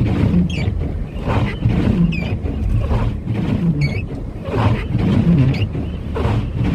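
Car cabin noise while driving through heavy snow: a steady low rumble of engine and tyres, a swishing sound about once a second, and a short high chirp every couple of seconds.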